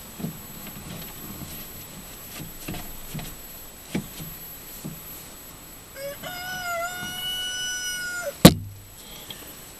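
A rooster crows once, a long held call of about two and a half seconds that is cut off by a sharp, loud knock. Before it come scattered light knocks and clicks.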